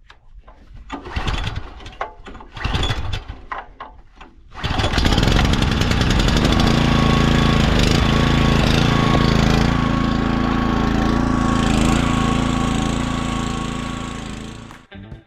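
A few short, irregular clattering noises, then a small gasoline engine on a belt-driven machine starts about four and a half seconds in and runs steadily. The engine starts up again after its slipped drive belt has been put back on its pulley.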